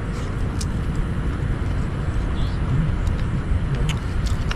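Steady low outdoor rumble with no voices, broken by a few brief light clicks.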